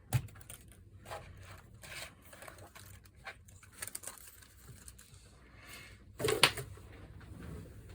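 Small scattered clicks, scrapes and rustles of hands working inside a Lenovo ThinkPad P71 laptop, freeing the keyboard and keyboard-backlight ribbon cable connectors. A louder knock comes about six seconds in.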